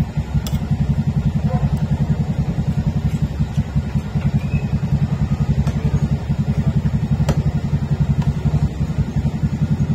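A small engine running steadily at idle, a rapid low pulsing of many beats a second, with a few light clicks of a spoon on a plate.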